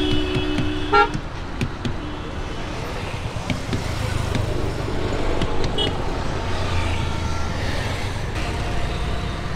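Road traffic running steadily, with a vehicle horn honking that stops about a second in. A few light knocks come through, hands patting the watermelons.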